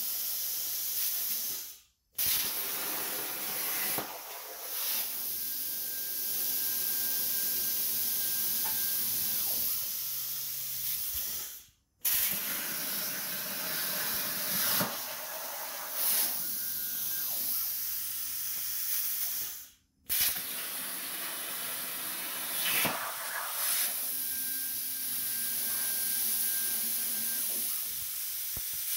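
CNC plasma cutter torch hissing as its arc pierces and cuts holes in 1/4-inch steel plate. The hiss runs in stretches of several seconds and breaks off abruptly three times.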